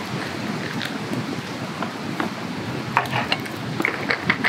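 Hoppy being poured from a bottle over ice in a glass, a steady fizzing pour as the foam rises. From about three seconds in, a run of crisp crackles and pops.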